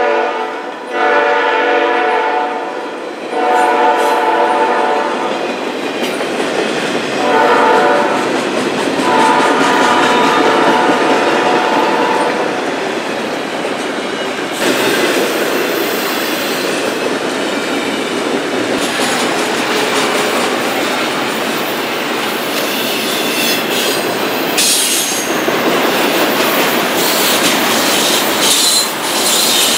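Freight train horn sounding in several long blasts over the rumble of passing double-stack intermodal cars. After about fifteen seconds the horn is gone, leaving the cars rolling by with wheel clatter and some wheel squeal.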